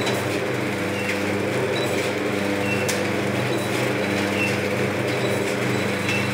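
Vertical form-fill-seal pouch packing machine running, a steady motor hum with a short high chirp repeating about every two seconds, in step with its cycle of forming and sealing pouches. There is one sharp click about three seconds in.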